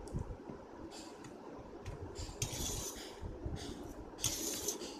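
Metal fork clinking and scraping against a metal plate while eating noodles, with a few light clicks and two short scrapes, about two and a half and four and a half seconds in.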